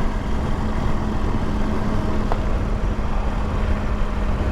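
Motorcycle engine running steadily with a constant hum, under wind and road noise, heard through an in-helmet microphone.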